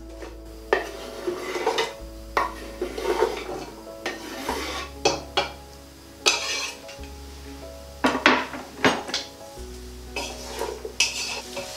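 Diced carrot and onion scraped off a wooden chopping board with a knife into a stock pot: a string of knocks and clatters from knife, board and pot, then a wooden spoon stirring and knocking in the pot. Background music with a slow bass line runs underneath.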